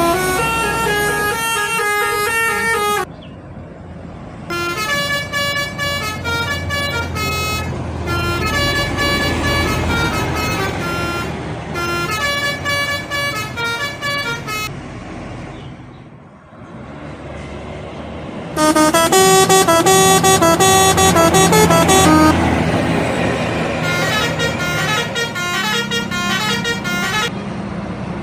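Indonesian bus telolet horns: a set of air horns playing quick melodic runs of stepping notes, repeated in three stretches with short breaks about three seconds in and just past the middle, the last stretch the loudest. A low engine rumble runs underneath.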